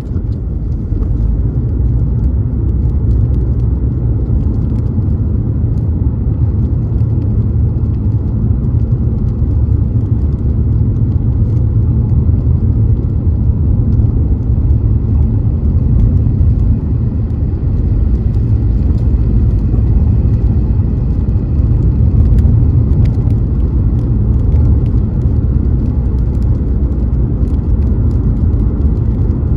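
Road noise of a Toyota Crown Athlete (210 series) driving: a steady low tyre-and-road rumble with the car's running noise, without a break.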